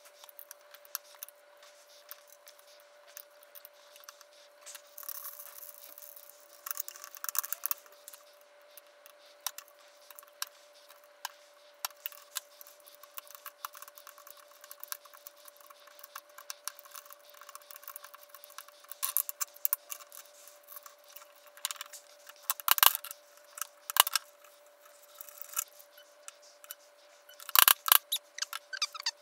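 Narrow hand chisel paring and scraping wood around a hex nut set in a small wooden knob, in irregular small cuts and clicks. A few sharper knocks come near the end.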